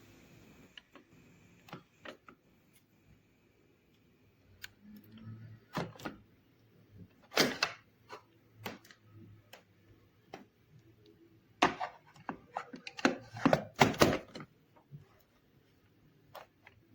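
Handling noise: irregular clicks and knocks of hard objects, with a loud knock about seven and a half seconds in and a cluster of louder knocks between about twelve and fourteen seconds in.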